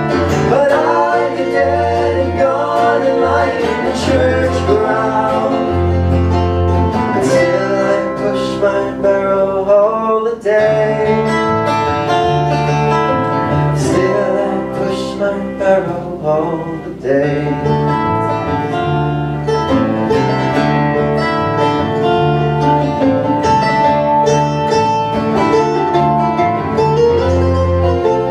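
Live acoustic folk band playing: bowed fiddle, mandolin, acoustic guitar and electric bass together at a steady level.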